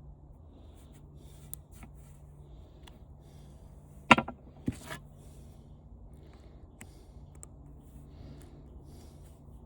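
Small clicks and scrapes of a screwdriver and loose fan parts being handled, with two sharp knocks a little past four seconds in, about half a second apart.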